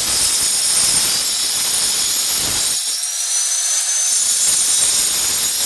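Angle grinder running at speed with a steady high whine, its disc cutting glass. The lower grinding noise drops away for about a second midway, then returns.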